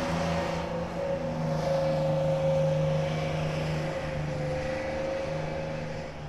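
Helicopter engine and rotor drone, a steady hum that holds one pitch and drops away at the very end.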